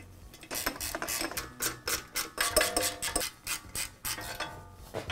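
Ratchet wrench clicking in quick irregular runs while the screws that fasten the pressure washer pump to the engine are driven in, with brief metallic ringing about two and a half seconds in.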